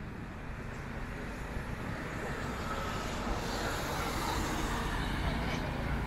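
A motor vehicle running close by, a steady engine rumble with road noise, growing gradually louder.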